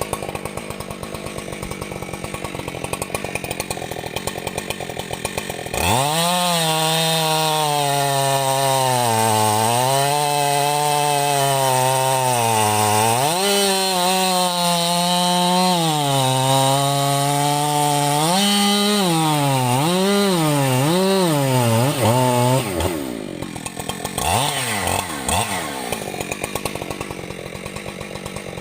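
Husqvarna 585 chainsaw idling with a pulsing beat, then opened up suddenly to high revs about six seconds in. The pitch sags and recovers several times, with a few quick throttle blips near the end, before it drops back to idle.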